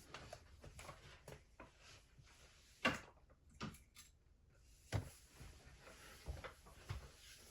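Faint, scattered clicks and taps of small metal tools handling a lock, with a few sharper clicks about three, five and seven seconds in.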